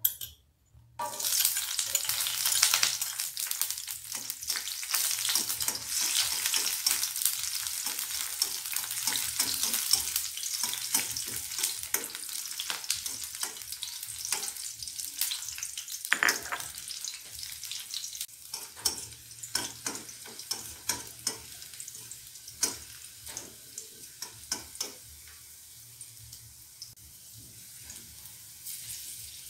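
Chopped garlic and red chili sizzling in hot oil in a stainless steel wok, stirred with a metal spatula that scrapes and taps the pan. The sizzle starts suddenly about a second in, as the ingredients go into the oil, and gradually dies down.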